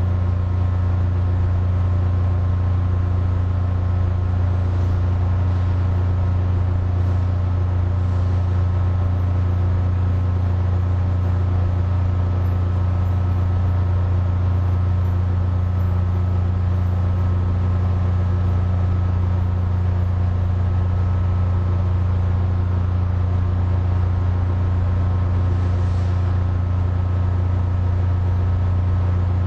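Air conditioner running steadily: a constant low hum with several steady tones above it and a light hiss of moving air.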